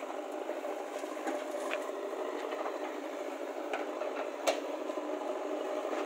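Diesel engines of a JCB 3DX backhoe loader and the tractors beside it running steadily while the backhoe digs, with a few short knocks, the sharpest about four and a half seconds in.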